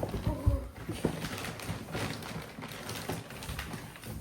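Handling noise: a sharp knock at the start and a few thumps in the first second, then light irregular clatter and rustling.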